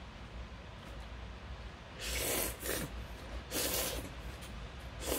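A person slurping cold buckwheat noodles (memil-guksu), three noisy, hissing slurps in the second half, each drawing air in with the noodles.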